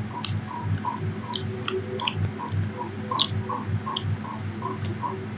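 Hands mixing rice and curry on metal plates, with scattered sharp clicks of fingers and rings against the metal, over a steady fast ticking of about four beats a second.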